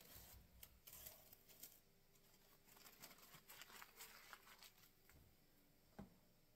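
Faint, irregular rustling and scraping from gloved hands and coveralls brushing and handling things close to the microphone, with one light knock about six seconds in.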